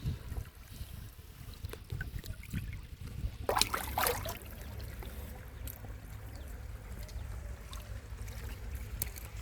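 Water splashing and trickling over a steady low rumble, with one louder splash about three and a half seconds in.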